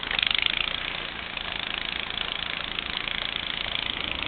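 An engine running with a fast, even pulse.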